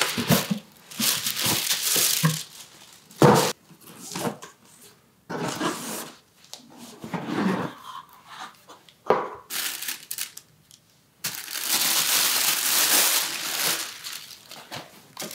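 Cardboard shoe box and tissue-paper packing rustling and crinkling as a pair of leather loafers is unboxed, in irregular bursts with a longer stretch of paper rustling about eleven seconds in.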